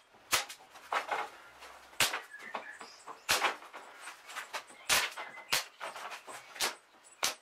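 Irregular sharp knocks and clicks, about one or two a second, of hands and a hand tool working on a long wooden mast blank.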